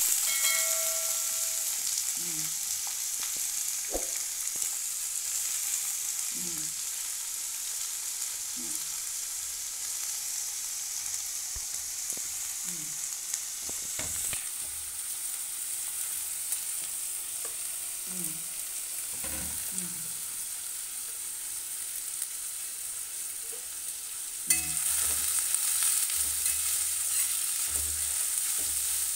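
Sliced onions sizzling steadily in hot oil in a kadai. Near the end a steel spoon stirs them, scraping against the pan, and the sizzle gets louder.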